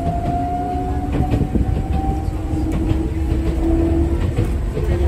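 Enoden electric train running, heard from inside the car: a steady low rumble with a motor and gear whine that rises slightly in pitch, and scattered clicks from the wheels and track.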